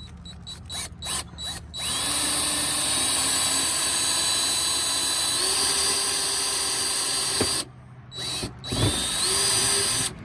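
Electric drill with a 1/8-inch bit boring a pilot hole through a car's metal fender: a few short trigger blips, then a steady whine for about five seconds, a brief stop, and a second run near the end, its pitch rising as the motor spins up.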